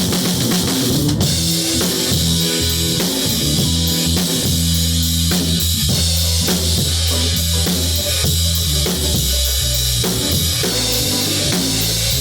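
Rock music with a drum kit, bass and electric guitar playing continuously, drums keeping a steady beat.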